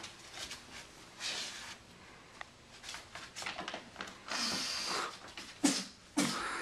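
Handling noise from a paper bag and a cardboard box as a person kneels and crawls into the box on carpet: scattered rustling, with two sharp knocks near the end.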